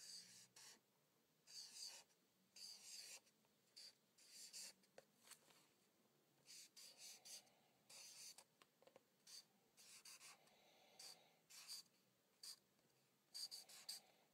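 Faint strokes of a felt-tip marker drawn across paper, each well under a second, with short pauses between them as the letters are written one by one.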